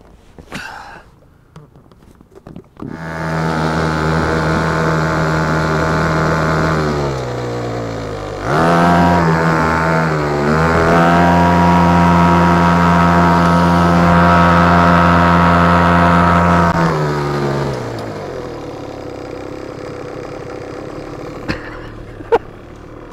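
Hangkai 3.5 hp two-stroke outboard motor running, starting suddenly about three seconds in. Its note sags and recovers twice in the middle, holds steady, then drops to a lower, quieter note for the last few seconds.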